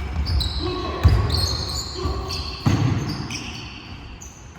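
Basketball game in a gym: sneakers squeaking in short high chirps on the court floor, with two heavy thuds of the ball about a second and a half apart, in a large echoing hall.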